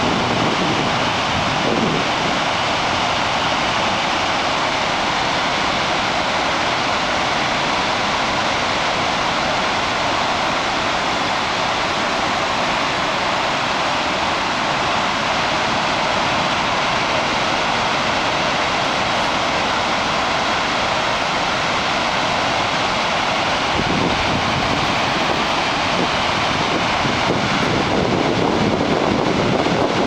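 San Rafael Falls, a large waterfall, pouring over a cliff: a loud, steady, even rush of falling water and spray.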